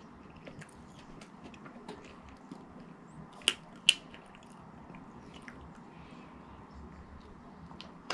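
A person chewing and biting fast food close to the microphone: many small irregular mouth clicks, with two sharper, louder clicks about three and a half seconds in.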